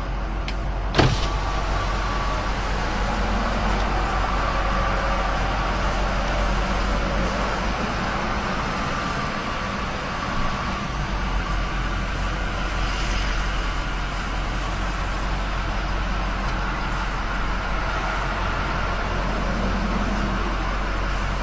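Steady road and engine noise heard from inside a moving vehicle's cabin, with one sharp click about a second in.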